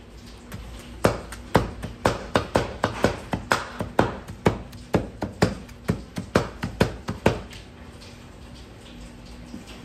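A heavy cleaver chopping raw meat on a wooden tree-stump block, mincing it by hand: quick, sharp chops about four a second that start about a second in and stop about seven seconds in.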